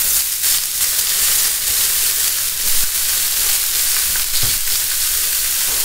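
Chicken breasts under a grill press and freshly added blanched broccoli and carrot slices sizzling on a hot flat top griddle: a steady hiss.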